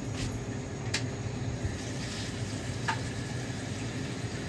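Steady hiss of an aloo paratha cooking on a hot tawa over a gas burner, with the range-hood exhaust fan running, and a single light click about a second in.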